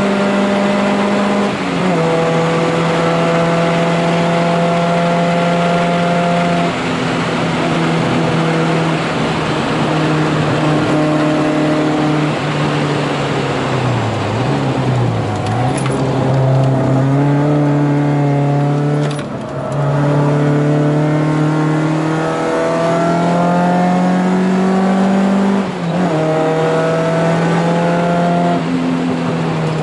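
VW Scirocco Mk1 GT's four-cylinder engine at race pace, heard from inside the cabin. It holds high revs with steps in pitch at the gear changes, and the revs dip and climb again briefly about halfway and just before the end.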